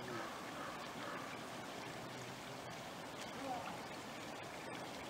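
Faint steady rushing noise, like running water, with a few faint, indistinct voices.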